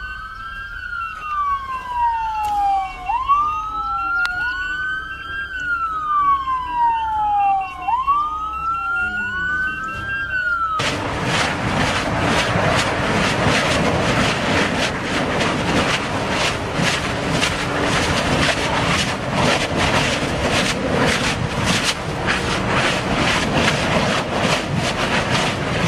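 An emergency vehicle siren wailing, rising quickly and falling slowly about every three and a half seconds, with a fast steady beeping alongside. About eleven seconds in it cuts off and gives way to the steady roar and dense crackling of a spattering lava fissure.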